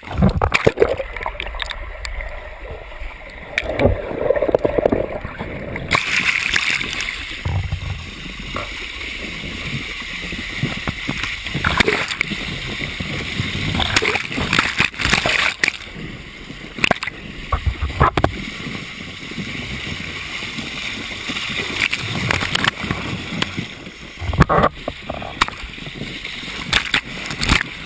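Water splashing and sloshing, with indistinct voices now and then.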